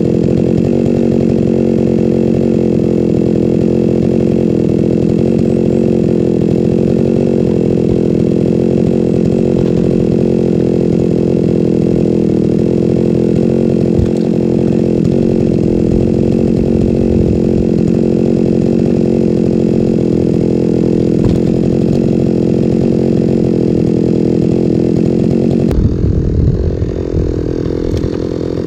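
Chainsaw engine running steadily at speed, cutting logs for firewood. About 26 seconds in the note changes abruptly and falls away.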